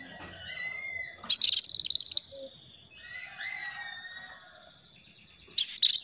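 Female canary calling: soft whistled chirps, a loud rapid trill about a second in lasting just under a second, and another sharp loud call near the end.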